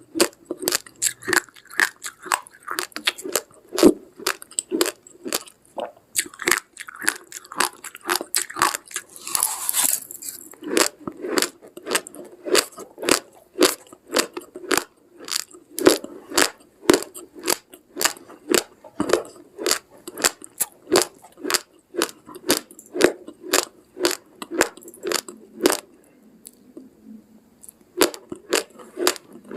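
Close-up crunching of a person chewing dry, uncooked rice grains, with sharp crunches at about two to three a second. The chewing pauses briefly near the end.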